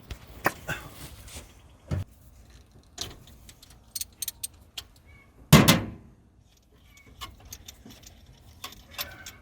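Light metallic clicks and clinks of hand tools and parts being handled under a car's hood, with one heavier knock a little past halfway.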